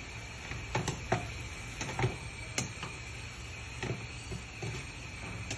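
Spatula tapping and scraping against a frying pan as pieces of sea cucumber are stirred, giving a run of irregular light knocks.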